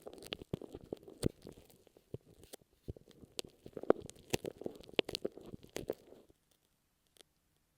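Glue stick rubbed over an earphone microphone: close, sticky crackling and rustling with sharp clicks, in two long passes that stop about six seconds in.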